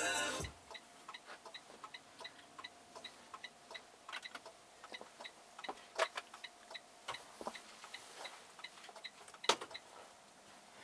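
Truck's turn-signal indicator clicking in the cab, a faint, steady, even ticking, with a few louder knocks and rustles scattered through.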